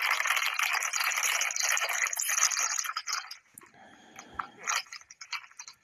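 Crinkling of a foil snack-chip bag of Funyuns being handled and reached into for about three seconds, then a shorter, lower crunch of a Funyuns onion ring being bitten and chewed.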